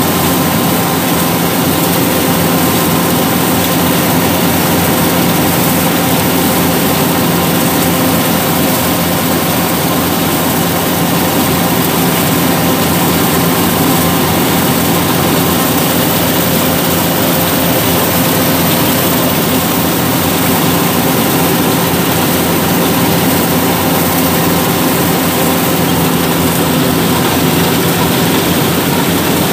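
Yanmar 850 rice combine harvester running steadily while cutting rice: a loud, constant engine and machinery drone with a steady hum and a hiss over it, heard up close at the operator's seat.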